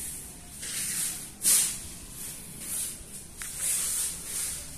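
Soft scuffs and rustles of a person walking with a handheld phone, several in a row, with one small click about three and a half seconds in.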